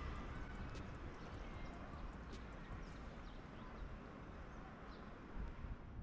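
Steady outdoor city ambience: a low rumble of distant traffic, with a few faint high chirps about two and a half and five seconds in.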